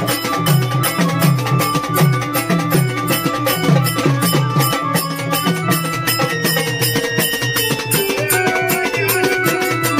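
Marathi gondhal folk music: a drum beats a quick, steady rhythm of low strokes that bend in pitch, under held keyboard notes and a melody.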